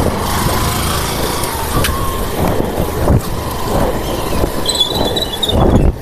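Motorbike engine running as it rides along the road, with wind buffeting the microphone and road rumble.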